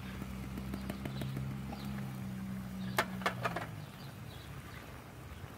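Canned diced tomatoes and their juice being poured into a cast iron pot of sautéing vegetables, with three or four sharp taps of the tin can a little after halfway, over a steady low hum.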